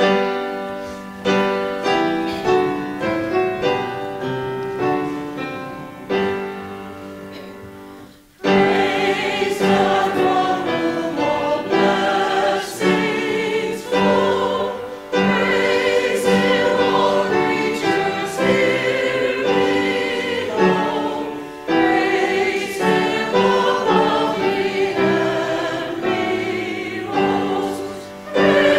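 A keyboard plays an introduction for about eight seconds. After a short break, a church choir and congregation sing a hymn together with keyboard accompaniment.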